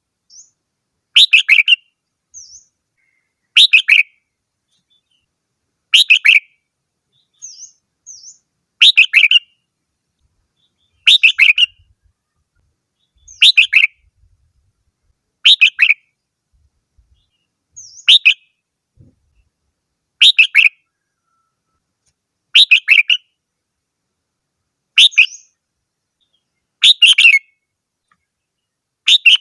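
Red-whiskered bulbul singing: a short, loud warbled phrase repeated at very even intervals about every two and a quarter seconds, about a dozen times, with a few faint high notes between phrases.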